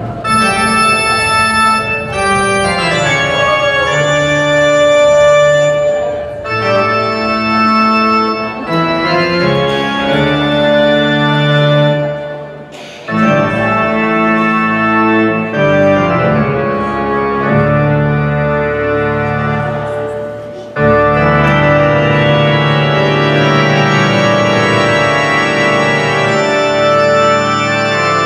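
Loud organ music playing slow, held chords that change every second or two, with a brief break about thirteen seconds in.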